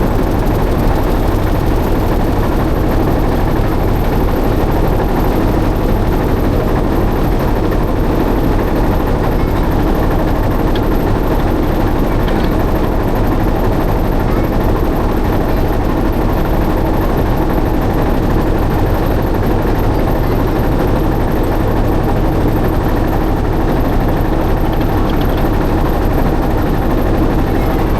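A boat's engine running steadily: a constant drone with one steady hum, no change in speed.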